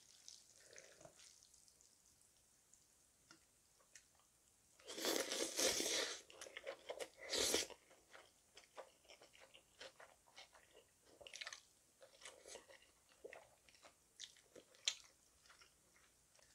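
Close-up eating sounds of cold naengmyeon noodles in spicy red sauce: a long loud slurp about five seconds in, a shorter one a couple of seconds later, then steady wet chewing with small smacking clicks.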